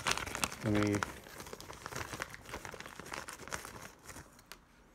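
Plastic parts bag holding a replacement antenna crinkling as it is handled, a run of irregular crackles that thin out near the end.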